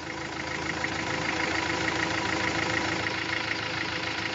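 An engine idling steadily, with a faint regular ticking in its sound.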